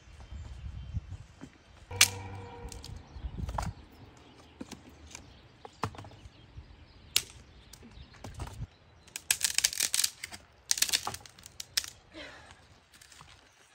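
Irregular sharp clicks and knocks. One louder clink about two seconds in rings briefly, and a quick flurry of clicks comes about nine to twelve seconds in.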